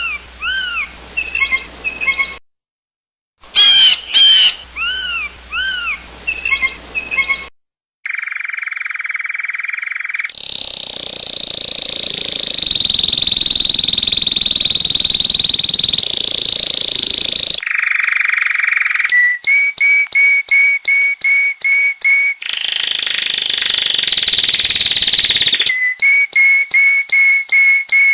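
Recordings of different birds' calls and songs, cut one after another. A phrase of arched chirping notes plays twice with a short gap between, then come long steady high-pitched whistled sounds, and near the end rapid runs of short repeated whistled notes, about three a second.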